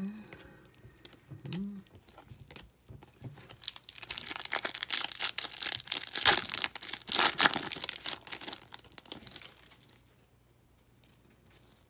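A trading-card pack wrapper being torn open and crinkled by gloved hands: a few seconds of dense crackling and tearing that starts about four seconds in and dies away near the end.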